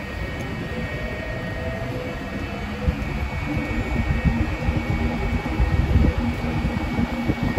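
Steady mechanical hum and low rumble of airport terminal machinery, including a running moving walkway, with a faint steady whine. From about three seconds in, irregular low thumps and rumbling grow louder.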